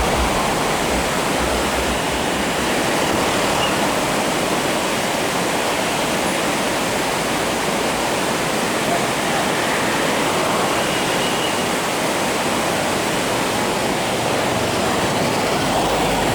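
Rushing whitewater of a river rapid: a loud, steady rush of water.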